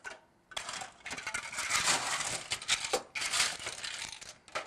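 Ice cubes scooped from a bar ice well, clattering and rattling into a tall glass until it is full, in two runs with a short pause about three seconds in.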